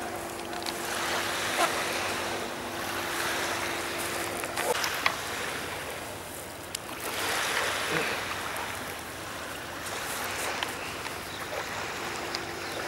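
Small waves washing onto a sand-and-shingle beach, swelling and fading every few seconds, with a few light clicks.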